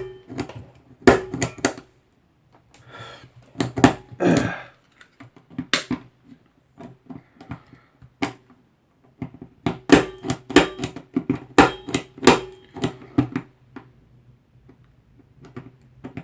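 Irregular clicks, taps and knocks of plastic network parts and Cat6 cable being handled and pushed to fit through a faceplate opening, with a few brief rustles.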